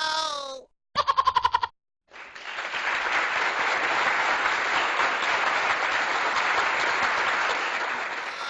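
A short buzzing fart sound about a second in, made of rapid pulses, then about six seconds of steady applause.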